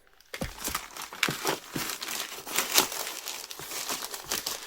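Packaging crinkling and rustling in quick, irregular bursts as a mail-order package is handled and unwrapped by hand.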